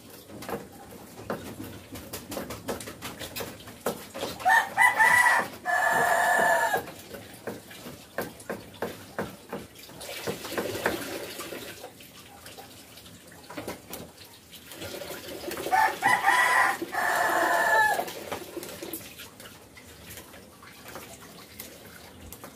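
A rooster crows twice, about eleven seconds apart, each crow a loud call of about two seconds. Under it, a cleaver knocks quickly and steadily on a wooden cutting board, chopping red chillies.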